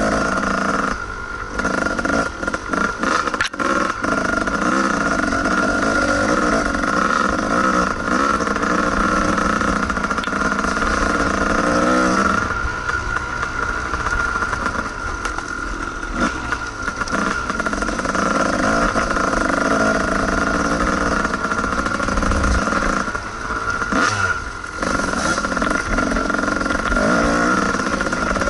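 Kawasaki KDX220's two-stroke single-cylinder engine running at speed on a dirt trail, rising and falling with the throttle. It eases off for several seconds about twelve seconds in and again around twenty-four seconds.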